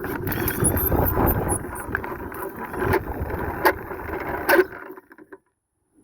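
Motorized pulley target carriage travelling fast along its line, rattling and bumping with a few sharp knocks, then stopping abruptly about five seconds in. It is heard from a phone mounted on the carriage itself.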